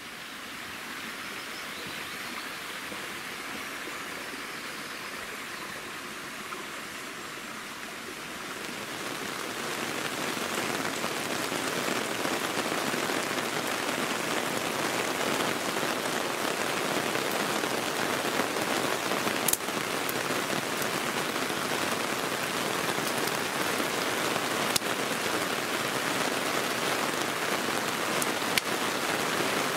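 Heavy rain pouring down: a steady hiss that grows louder about a third of the way in, with two sharp ticks later on.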